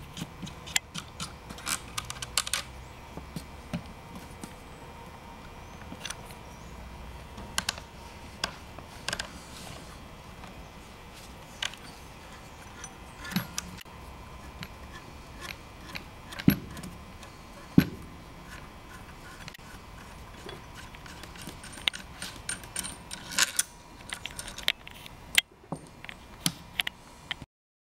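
Small metal parts clicking and clinking as the knurled lock nut, gas regulator nut and spring are unscrewed and slid off the magazine tube of an MKA 1919 12-gauge shotgun. The clicks are scattered and irregular, with a faint steady tone underneath, and the sound cuts off suddenly near the end.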